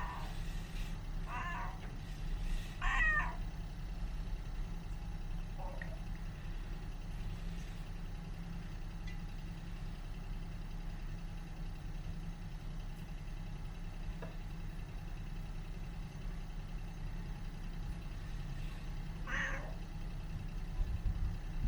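Cat meowing: a few short meows in the first three seconds, one more about six seconds in, then quiet until two more near the end. A steady low hum runs underneath.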